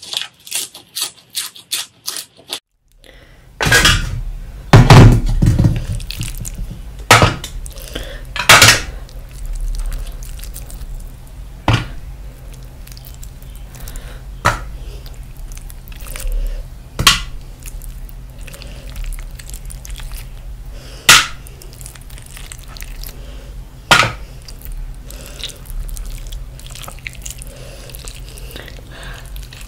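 Close-miked eating sounds. First comes a quick run of crisp crunches as a lettuce leaf is bitten. Then, after a short gap, wet squelching of saucy roast meat and rice being torn and handled by hand and eaten, with a sharp smack every few seconds over a steady low hum.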